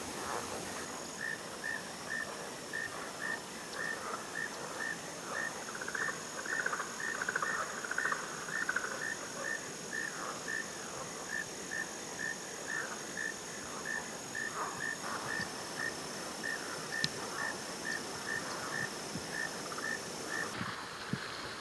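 Insects calling: a steady high-pitched drone, with a regular chirp repeating about twice a second. One strand of the drone drops out about three-quarters of the way through.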